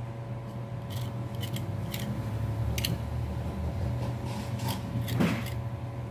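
A small blade scraping and nicking at the windings of a ceiling fan's stator in short, separate strokes, the loudest about five seconds in, over a steady low hum.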